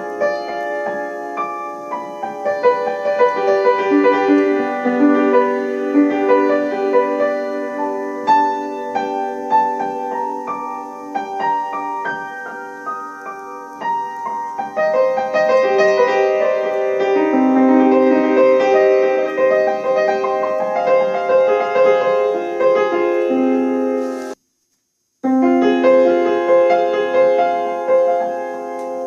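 Piano music: a dense passage of many overlapping notes, played at a slowed tempo. It is cut by a sudden silence of about a second near the end, then picks up again.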